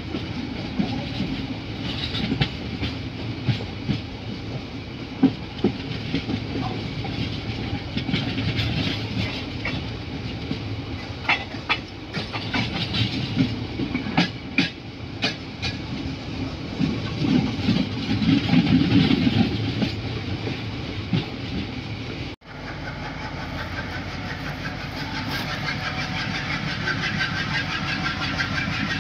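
Train running on the rails, its wheels clicking sharply over rail joints in a quick series around the middle. Near the end the sound cuts out abruptly and a steadier, smoother running sound takes over.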